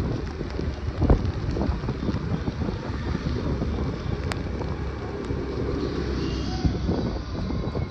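Wind rushing and buffeting over the microphone of a moving motor scooter, with road and engine noise from the scooter underneath. One sharp knock about a second in.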